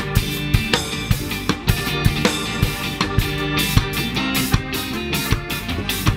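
Live ska band playing, with trumpet and tenor saxophone over organ, electric guitar, bass guitar and a drum kit keeping a steady beat.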